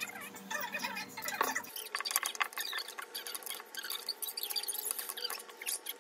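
Close-miked eating sounds: dense crackly chewing and mouth noises, with chopsticks and a spoon clicking and scraping as they stir curry and rice in a ceramic dish.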